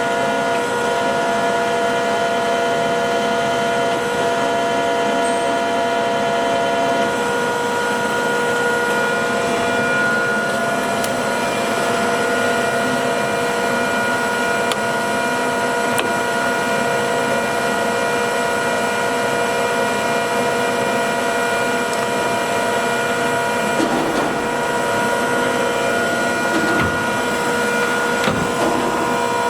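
Jones & Lamson Model 5-3 ram-type turret lathe running under power: a steady machine whine with several held tones over a mechanical hum, and a few light knocks near the end.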